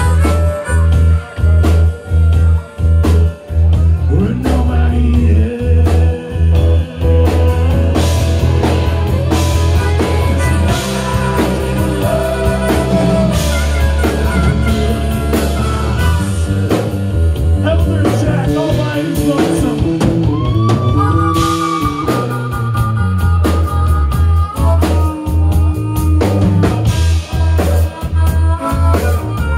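Live blues-rock band: a harmonica played through the vocal mic in long held and bending notes over electric guitars, bass guitar and a drum kit keeping a steady beat.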